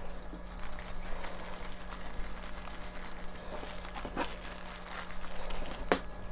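Crinkling and rustling of crumpled packing paper and a plastic zip-top bag as hands rummage through moss samples, with one sharp click near the end.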